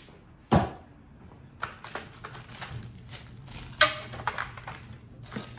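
A sharp knock about half a second in, followed by plastic packaging crinkling and rustling and small hardware clicking as a bag of screws and parts is handled.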